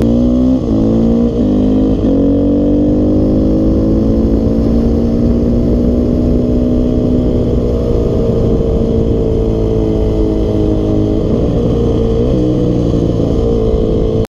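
Dirt bike engine heard from the rider's seat, accelerating hard through three quick upshifts, its pitch climbing and dropping each time in the first two seconds. It then holds a steady pitch, eases off briefly near the end and picks up again.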